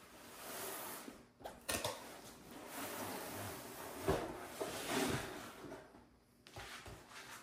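Rustling and scraping of a cardboard kit box being opened and its packaging handled, with a couple of sharp knocks, the louder one about four seconds in.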